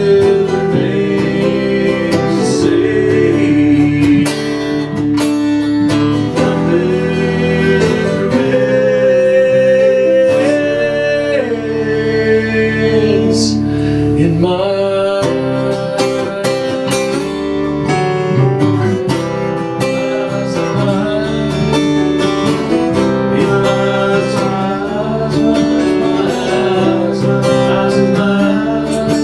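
Music: acoustic guitar strummed and picked in an instrumental passage of a country-style song, with a held melody line over it.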